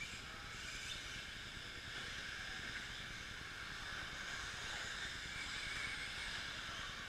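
Radio-controlled 2WD electric short-course trucks racing on a dirt track: a steady high whine and hiss from their motors and drivetrains, with faint rises and falls in pitch as the trucks speed up and slow down.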